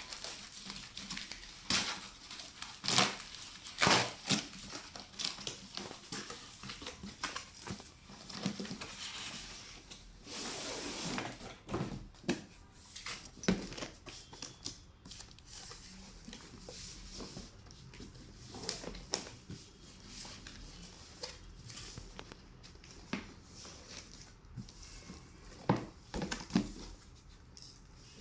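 Cardboard box and packaging being handled while unpacking a robot vacuum: scattered knocks and clicks with rustling, and a longer scraping, tearing rustle around the middle.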